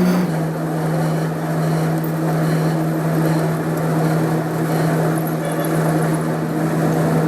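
Lathe motor running with a steady hum that drops slightly in pitch just after the start and then holds.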